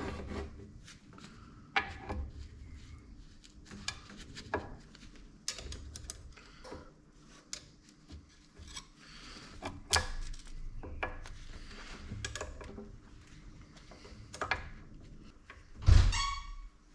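Scattered clicks, knocks and clinks of metal drill-press gearbox parts being handled and fitted, with one loud clank and a short ring near the end.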